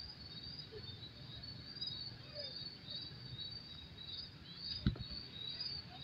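Night insects chirping in a steady, high-pitched pulsing chorus, with a few faint bird calls. A single sharp knock sounds once, about five seconds in.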